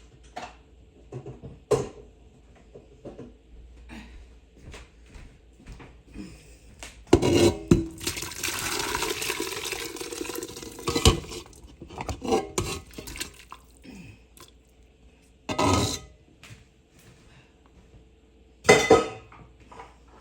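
Metal pots and a utensil clanking and knocking as cooked chicken, vegetables and broth are moved from an Instant Pot's inner pot into a soup pot, with liquid pouring for about three seconds in the middle.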